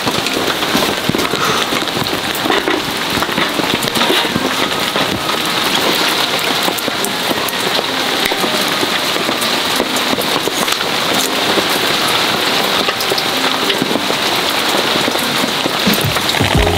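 Heavy rain falling on a tent's fabric roof: a dense, steady patter of many drops.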